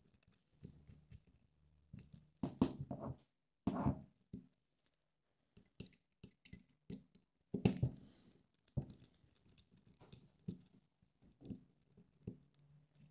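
Hex screwdriver driving the motor screws into a carbon-fibre drone arm, with the parts handled and set down: scattered irregular knocks and clicks, a few louder ones.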